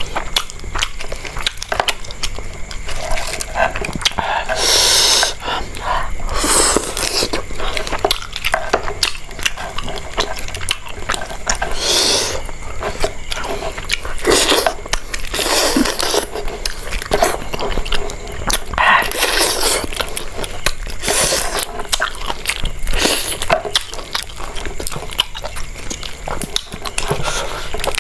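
Close-miked eating of river lobster and spicy noodles: biting, crunching and chewing, a dense run of clicks and smacks with louder hissy bursts every few seconds.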